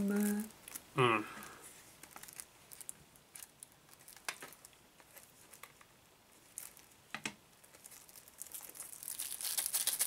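Plastic shrink-wrap on a CD case being picked at and peeled, giving scattered small crackles that turn into dense crinkling near the end. About a second in, a voice makes a short sound sliding down in pitch.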